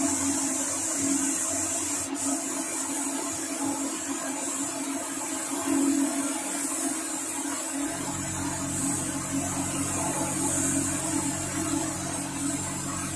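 Air-fed paint spray gun hissing steadily as it sprays paint, with a short click about two seconds in. A motor's low steady hum joins about eight seconds in.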